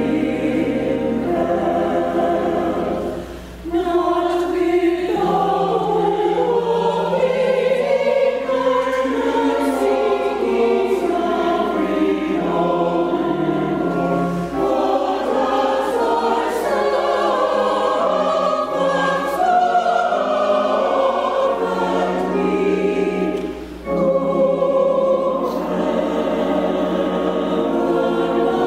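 Church choir singing an anthem in held, sustained phrases. There are short breaks between phrases about three and a half seconds in and again about five seconds before the end.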